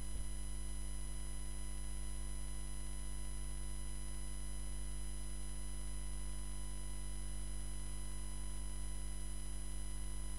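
A steady electrical hum made of many fixed tones, low and high, that does not change. No handling sounds stand out above it.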